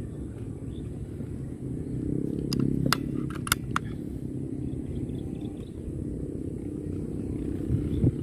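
Steady low wind rumble on the microphone, with a few sharp metallic clicks from about two and a half to four seconds in as the bolt of a Squires Bingham CO2 air rifle is worked to chamber a pellet. A dull thump comes near the end.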